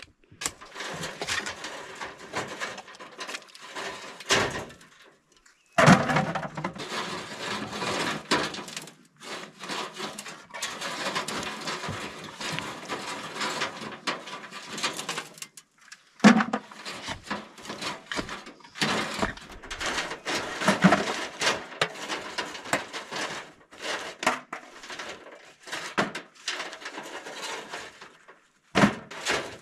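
Topsoil being shoveled onto a grate over a wheelbarrow and rubbed through it to screen out rocks: a long run of rough scraping, broken by several short pauses.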